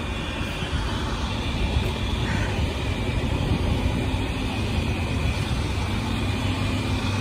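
Steady low rumble of an idling car engine close by, with a faint steady high tone above it.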